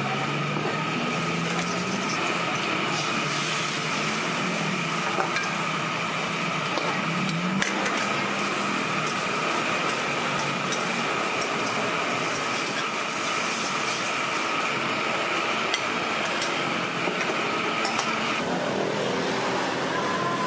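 Egg frying in a steel wok over a gas burner: a steady hiss with a faint high whistle, broken by clinks and scrapes of a metal spatula against the wok. The whistle stops near the end.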